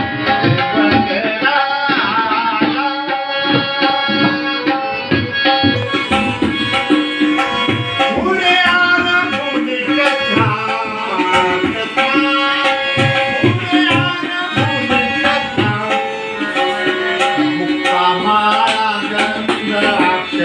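Harmonium and tabla playing an abhang, a Marathi devotional song, with a man's singing voice over them. The tabla keeps up a busy rhythm of sharp strokes and deep bass thumps under the harmonium's sustained chords.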